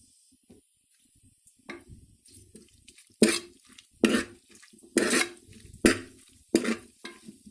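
A metal spoon stirring a thick mash of boiled banana stem and chana dal in a metal pot, mixing in turmeric and salt: light scraping at first, then from about three seconds in a ringing knock against the pot roughly once a second.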